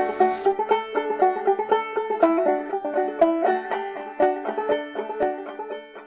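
Upbeat instrumental music of fast plucked-string notes, slowly fading out.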